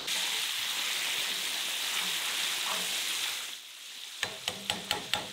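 Pieces of grass carp frying in hot oil in a cast-iron kazan, the oil sizzling steadily. Near the end the sizzle drops and a quick run of sharp clicks follows.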